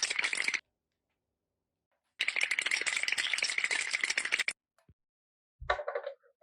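Rapid, dense rattling clatter in two bursts of about two seconds each, separated by about a second and a half of silence, followed near the end by a few short knocks.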